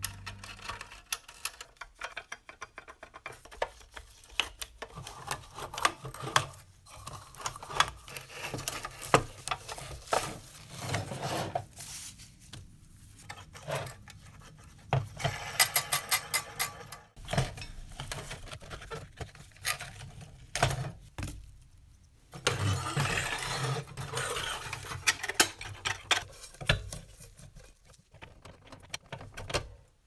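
A rusty 1950s Joustra tin-plate toy road roller being handled, its loose metal parts and wheels clicking and rattling. About halfway through, a roller wheel spins and gives a fast run of even ticks.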